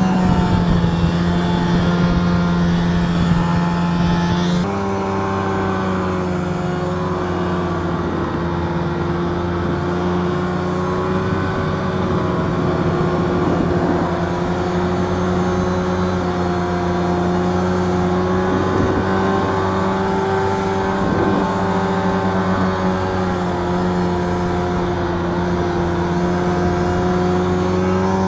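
Polaris Widetrak LX snowmobile engine running steadily as the sled cruises over snow. The engine note changes abruptly about five seconds in, then holds steady again.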